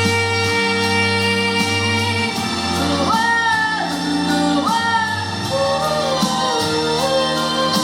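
Music: a song with instrumental backing of sustained notes, and a singing voice carrying a gliding melody that comes in about three seconds in.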